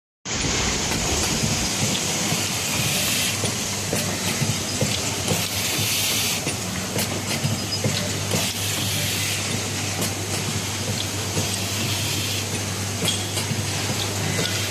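Automatic resistance spot-welding machine running: a steady hum with hiss that swells and fades, and scattered sharp clicks from the machine.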